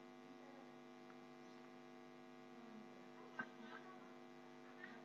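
Near silence: a faint, steady electrical mains hum, with one faint click a little over three seconds in.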